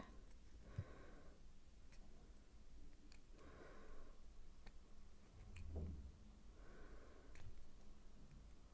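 Near silence, with a handful of faint, sharp clicks from small jewelry pliers on a thin metal pin as it is bent into a loop, and a few soft breaths.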